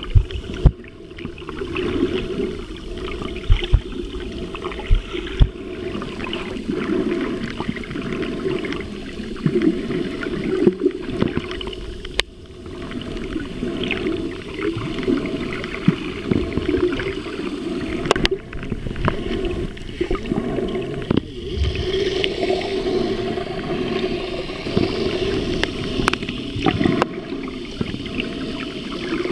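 Muffled underwater sound picked up by a camera below the surface: water moving and gurgling around it. A few low thumps come in the first seconds, and a few sharp clicks later on.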